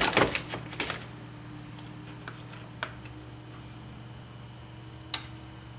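Sharp clicks and knocks of metal parts being handled as the pressure washer pump is pulled back off the engine. There are several in the first second, then a few single clicks, over a faint steady hum.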